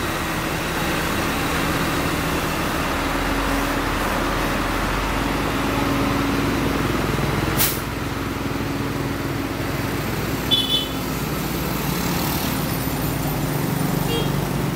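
Komatsu PC130 excavator's diesel engine running steadily while the machine swings its upper structure on the truck deck. A sharp click comes about eight seconds in, and brief high squeaks come a couple of seconds later.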